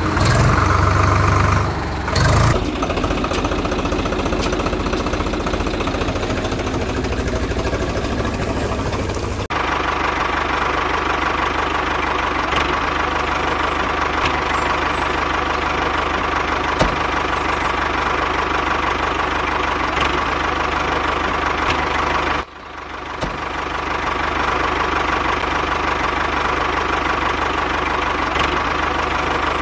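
Tractor engine running steadily, with an abrupt change in the sound about nine seconds in and a brief drop in level about twenty-two seconds in.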